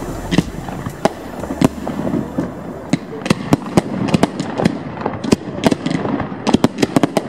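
Fireworks display at close range: aerial shells bursting with sharp bangs, a few spaced out at first, then a rapid string of bangs from about three seconds in.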